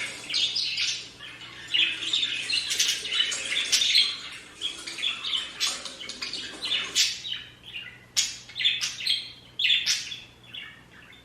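Budgerigars chirping and warbling: a dense run of short, high calls that thins out after about six seconds into separate sharp chirps with brief gaps.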